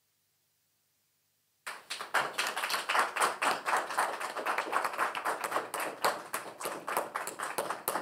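Applause from a small audience, hands clapping quickly and irregularly. It starts suddenly about a second and a half in, after silence.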